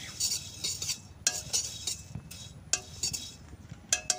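Metal spatula stirring and scraping dry-roasted flattened rice (chira) around a metal kadai: a dry rustling scrape, broken by four or five sharp ringing clinks as the spatula knocks the pan, about one every second and a half.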